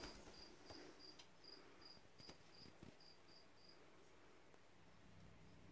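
Faint, high-pitched chirps repeating about three times a second, stopping a little over halfway through; otherwise near silence.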